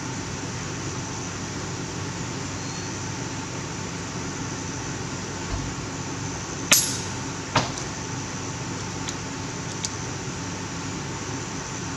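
A single shot from an FX Impact .30-calibre PCP air rifle: one sharp crack about two-thirds of the way in, then a second sharp crack just under a second later. Two faint clicks follow a couple of seconds after.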